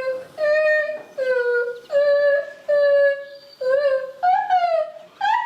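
A person's voice singing a bird-like song of short held notes, about seven in a row, each roughly half a second long with brief gaps, some sliding downward in pitch, imitating a songbird's song.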